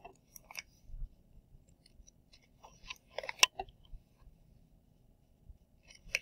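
Pages of a picture book being turned by hand: a few faint paper clicks, then a burst of paper rustling and crackling about three seconds in, with one sharp click as the page is laid down.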